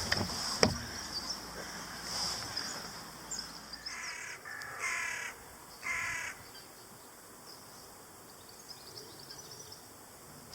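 A bird calling three times, each call short and about a second apart, with a couple of small knocks about a second before.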